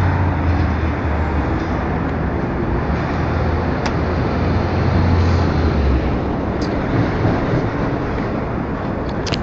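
City street traffic noise with a low engine rumble that eases about six seconds in, and a few short clicks.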